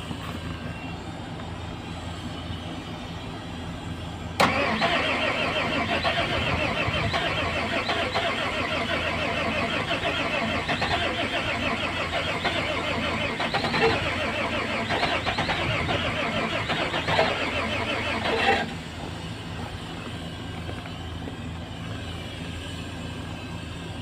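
Frozen motor grader diesel engine cranked on the starter for about fourteen seconds in the deep cold without catching, then the cranking stops abruptly. A few louder spikes come in the second half of the cranking. A steady low engine hum runs underneath throughout.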